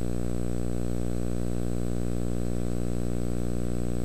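Steady electrical mains hum with many harmonics, holding level throughout, with a faint high whine above it.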